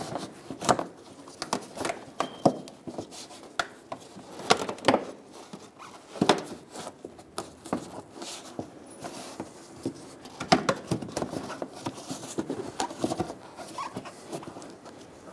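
2007–2011 Toyota Camry's plastic fender liner being pulled over and tucked into the edge of the plastic front bumper cover by gloved hands: irregular sharp clicks, knocks and rubbing of plastic on plastic.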